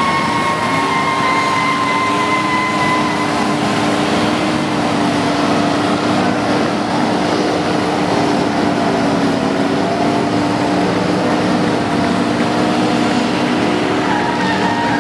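Dozens of cars doing a mass burnout together: many engines held at high revs with their rear tyres spinning in smoke, merging into a loud, steady roar with several held pitches.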